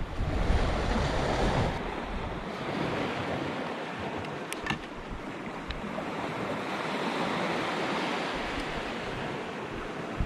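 Sea waves washing on the shore, swelling and easing, with wind buffeting the microphone. A short sharp click about halfway through.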